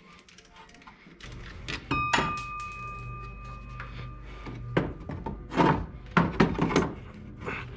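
Metal tools and parts knocking and clanking under the hood during engine-bay disassembly, a series of sharp knocks and clicks. A steady low hum starts about a second in.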